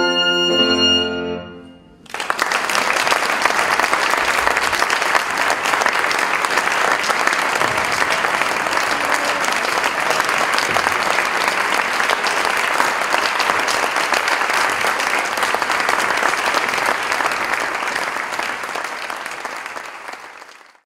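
Two clarinets and a piano play the final notes of a piece, which end just before two seconds in. The audience then breaks into steady applause, which fades out near the end.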